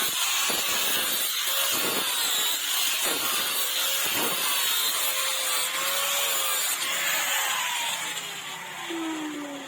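A power tool running under load, its motor pitch wavering as the work is pressed against it, then spinning down with a falling whine near the end.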